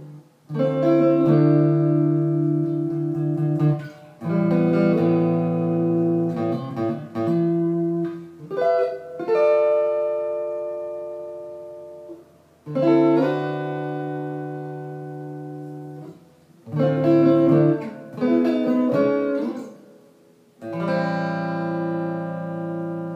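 Fernandes Stratocaster-style electric guitar played solo: chords and short melodic phrases that ring out and fade, broken by short pauses, about six phrases in all.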